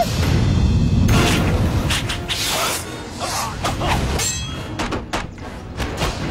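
Martial-arts fight sound effects: a series of swooshes and hard hits over a low, rumbling dramatic music score.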